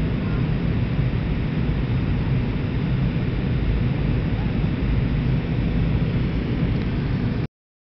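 Steady deep rumble of an MD-82 airliner's rear-mounted Pratt & Whitney JT8D turbofans and rushing air, heard from inside the passenger cabin during the climb after takeoff. The sound cuts off abruptly near the end.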